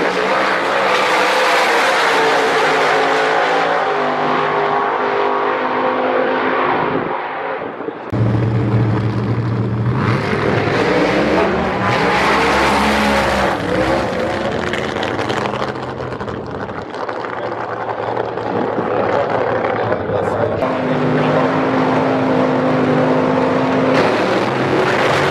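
Drag-racing cars' V8 engines running hard down the strip, loud throughout. The sound changes abruptly about a third of the way in and again around two-thirds of the way, as one pass gives way to another.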